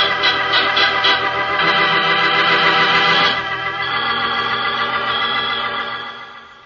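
Organ music bridge marking a scene change: sustained organ chords that shift twice and then fade out near the end.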